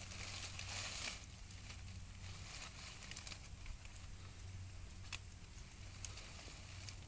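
A goat browsing in dense weeds: leaves rustling, loudest in the first second, with a few sharp snaps of stems being torn, the clearest about five seconds in. A low steady hum runs underneath.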